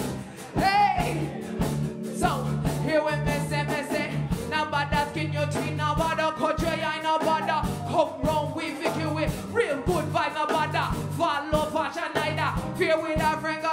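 Live music: a woman's voice singing melodic phrases over electric keyboard and a steady, repeating bass-and-drum beat.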